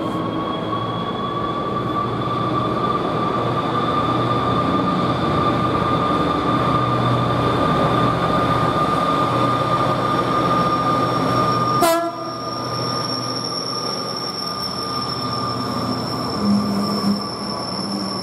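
DB Cargo Class 66 diesel locomotive, with its two-stroke EMD engine, passing under power at the head of a freight train, with a steady high whine over the rumble. About twelve seconds in, the sound changes abruptly after a sharp click, and the wagons roll past with a thin high squeal.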